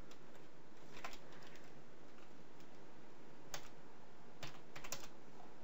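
Computer keyboard keystrokes: a few scattered key clicks with a quick cluster near the end, over a faint steady hiss.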